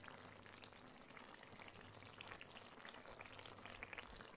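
Clay tagine simmering over a charcoal brazier, its oily sauce sizzling faintly with a steady patter of tiny crackles, while a wooden spoon scoops the sauce over the onions.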